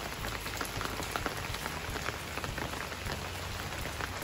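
Steady rain falling on wet paving stones, puddles and garden plants, with many individual drops splashing.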